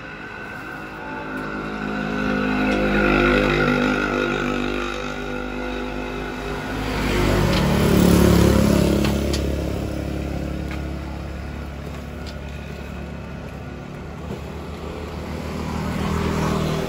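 Road traffic passing, engines swelling and fading as each goes by. One pass peaks about three seconds in, a louder one, a motorcycle, about eight seconds in, and another vehicle comes up near the end.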